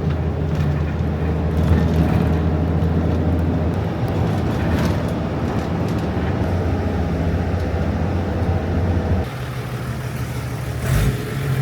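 Bus engine droning steadily with road noise, heard from inside the cabin; the drone drops in level about nine seconds in.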